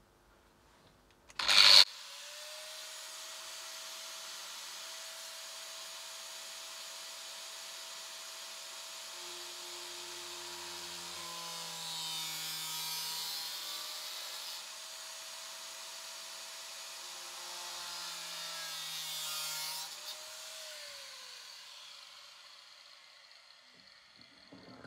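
Angle grinder with a thin slitting disc, starting with a sharp click and then running with a steady whine while it cuts a slot. The cutting gets louder and rougher twice along the way. Near the end it is switched off and the whine falls away as the disc winds down.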